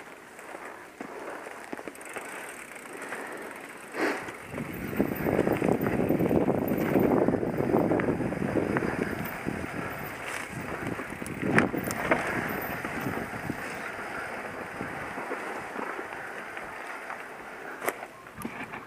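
Downhill mountain bike rolling down a dry dirt trail, heard from a helmet-mounted camera: the tyres keep up a constant rough rush on the dirt, mixed with rattle from the bike. The rush is loudest through the middle stretch, and several sharp knocks break it as the bike hits bumps.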